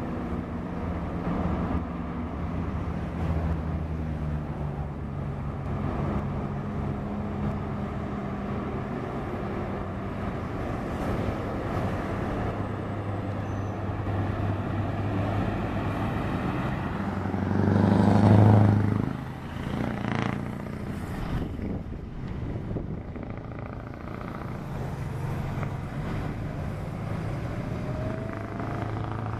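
Scania R-series V8 truck engine running steadily as the truck drives along, with other road traffic, and one loud close pass-by that swells and fades about eighteen seconds in.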